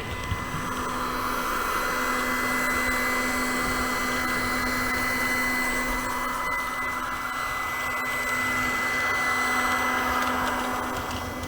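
LUX track-cleaning vacuum car on an H0 model railway running. Its small electric motor and fan whir steadily with a thin high whine, easing off slightly near the end.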